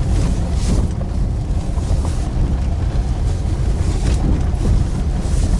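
A car driving at night, heard from inside the cabin: a steady low rumble of engine and tyres on the road, with a few short, louder noises.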